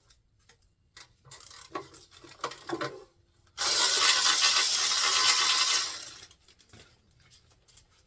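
Metal tools and engine parts clinking and rattling, then a loud, steady rushing noise that lasts about two seconds and fades out.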